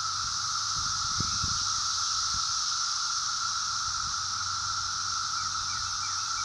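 Cicadas calling in a steady, unbroken chorus: a continuous high-pitched buzz with a lower second tone beneath it.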